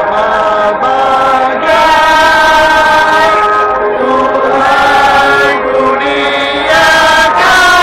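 A large grandstand crowd singing a song together, in long held notes that change pitch every second or so.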